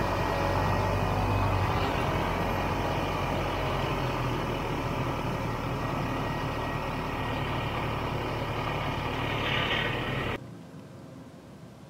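Vintage Ski-Doo snowmobile's two-stroke engine running at low speed as the sled creeps along and pulls up. The sound cuts off abruptly about ten seconds in, leaving only a faint hiss.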